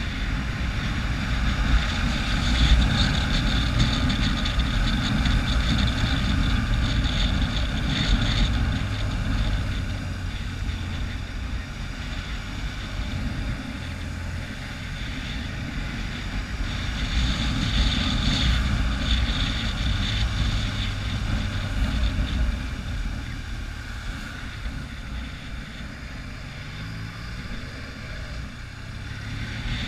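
Motorcycle engine running under way with wind rushing over the microphone, the level swelling and easing; near the end the engine note rises as it accelerates.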